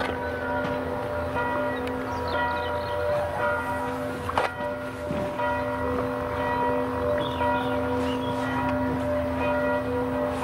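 A church bell ringing, its tones humming on steadily between strokes.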